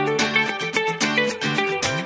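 Background music with a steady beat and short, repeating plucked notes.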